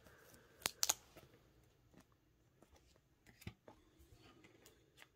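Faint handling of a trading card and a soft plastic sleeve: a light rustle with a few small clicks and taps, a pair just under a second in and another past the middle, as the card is sleeved and set on a wooden table.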